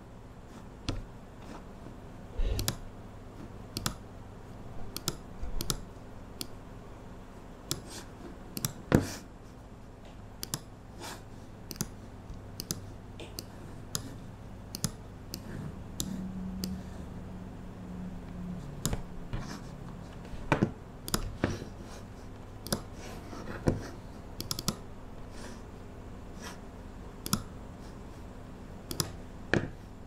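Irregular clicking and tapping of computer keyboard keys at a desk, sparse rather than steady typing, with a few louder knocks, over a steady low hum.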